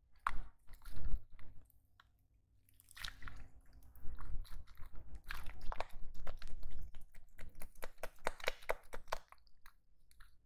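Pink homemade slime, made without glue or borax, stretched, folded and squeezed by hand, giving many small wet, sticky clicks and pops. A few come in the first two seconds, then a dense run through the middle, thinning near the end.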